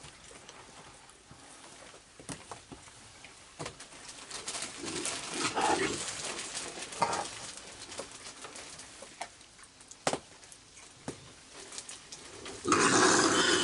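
Raccoons feeding on marshmallows on a wooden deck: scattered small clicks and taps of chewing and paws on the boards, with soft cooing churrs from the raccoons. Near the end comes a loud rustling noise lasting about a second.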